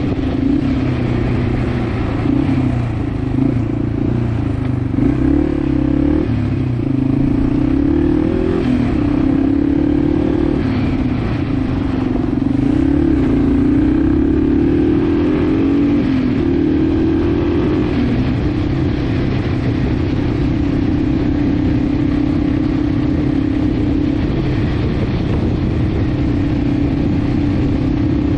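Yamaha TW200's 196cc single-cylinder engine running while the bike is ridden, its pitch rising and falling again and again with the throttle during the first half, then holding steady at a cruise.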